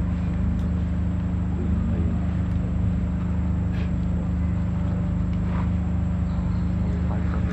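A motor running steadily with a low, even hum. A few faint high squeaks sound about four seconds in, again a second and a half later, and near the end.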